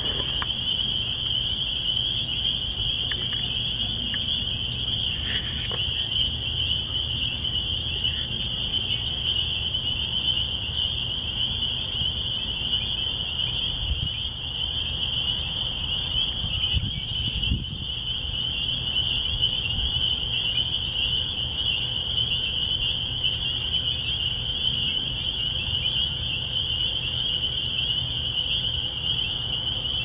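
Dense chorus of spring peepers, countless high peeps merging into one continuous shrill band, over a steady low rumble.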